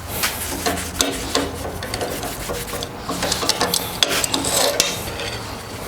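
Forged steel hinge being handled and swung on its rolled barrel, metal scraping and rubbing with scattered small clinks.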